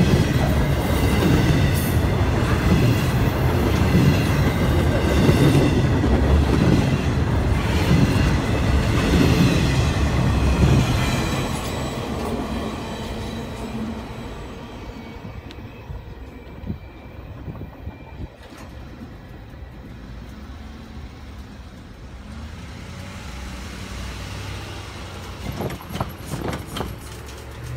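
Double-stack container cars of a CN intermodal freight train rolling past: a steady heavy rumble and clatter of steel wheels on the rails, with a thin high wheel squeal over it. About eleven seconds in the sound falls away to a much quieter low rumble, with a few short clicks near the end.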